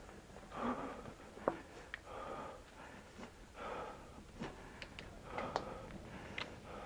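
A mountain biker breathing hard while riding, a heavy breath about every second and a half, with scattered sharp clicks and rattles from the bike.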